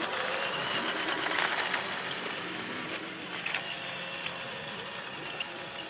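Radio-controlled model truck driving on asphalt: the steady whir of its electric motor and gearbox, loudest about a second and a half in and then slowly fading as it moves away.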